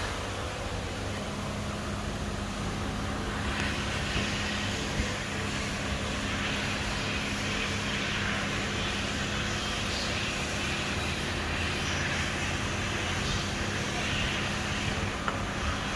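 Steady low mechanical drone with a constant hum, and a few light clicks near the end.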